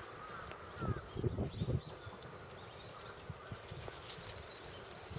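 Outdoor ambience with birds chirping and a few low thumps about a second in.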